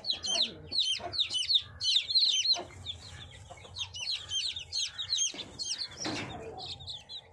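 Newly hatched Kadaknath chicks peeping: many rapid, high, falling peeps overlapping one another, thinning out for a moment in the middle. There is a short noisy burst about six seconds in.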